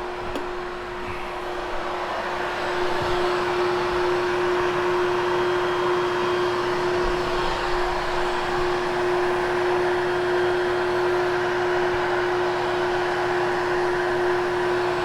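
Hoover HushTone upright vacuum cleaner running steadily with a constant motor whine, sucking down hard on soft Triexta carpet pile that restricts its airflow. It grows a little louder about two to three seconds in.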